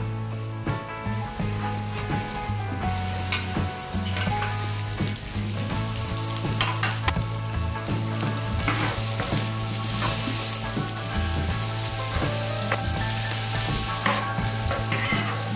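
Minced garlic and sliced red onion sizzling in a wide aluminium pan, with a metal spoon stirring and scraping them. Scattered sharp clicks of the spoon against the pan.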